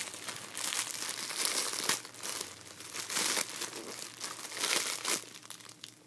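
Plastic packaging crinkling and rustling in irregular bursts as a clear plastic bag holding a squishy toy and a poly mailer are handled, dying down near the end.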